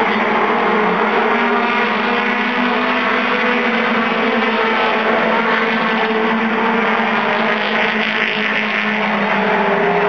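Several short-track race cars running at speed around a paved oval. Their engines make a loud, steady drone that holds much the same pitch throughout.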